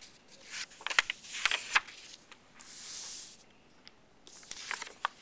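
Paper cards being handled: rustling, a few light taps, and a smooth sliding swish about halfway through as a card is pushed across a surface, with more rustling near the end.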